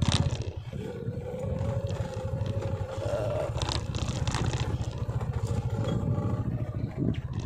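Motorcycle engine running at low, steady revs, with a faint whine above it and a few rattles as the bike rolls over the rough concrete.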